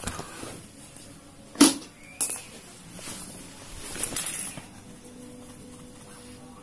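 Handling noise on a flat-screen TV under repair: one loud sharp knock, a second about half a second later, then a short run of small clicks and rubs, over a faint steady hum.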